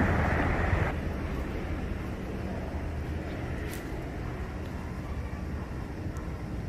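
Steady low outdoor background rumble with no distinct event. A louder noise drops away about a second in, and there is one faint tick near the middle.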